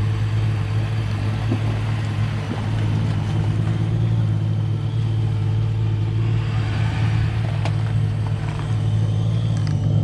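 Jet boat engine idling steadily, a low even hum, with a few light clicks near the end.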